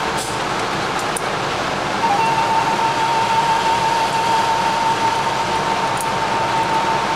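Steady rushing air noise with a constant high whine, like an indoor range's ventilation, broken by a few faint small clicks.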